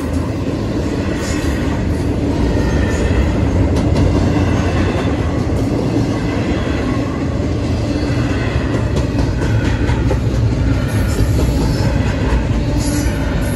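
Double-stack intermodal freight cars of a Norfolk Southern train rolling steadily past. Loud, continuous rumble of steel wheels on rail, with scattered clicks from the wheels over the rail joints.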